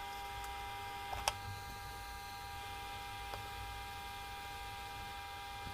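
Faint steady room noise: a low hum under several thin, steady high-pitched whine tones, like electrical equipment running. There is one sharp click about a second and a quarter in, and a fainter tick a couple of seconds later.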